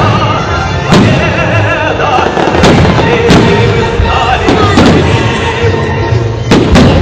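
Fireworks salute: shells bursting in a string of loud bangs, roughly one every second or so, with two close together near the end, over music playing.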